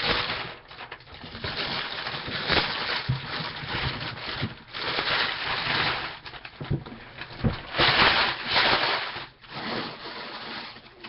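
Loud crinkling of a plastic wrapper being pulled and handled, coming in irregular bursts, with a few soft knocks as the packaging is moved.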